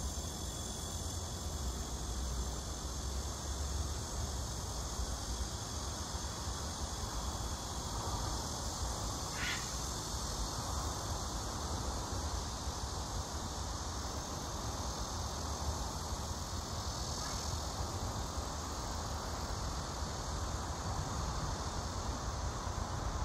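Steady high-pitched chorus of insects over a low rumble, with one short call about nine and a half seconds in.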